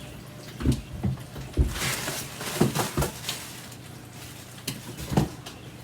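Packing paper rustling and parts knocking as a hand rummages through a cardboard shipping box, with irregular clunks and a stretch of crinkling about two seconds in.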